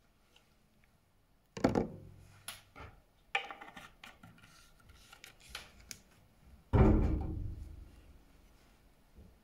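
Knocks and clatter of hard objects being handled on a bench, with a loud thud about a second and a half in and a louder one near seven seconds in that dies away over about a second, and lighter clicks between them.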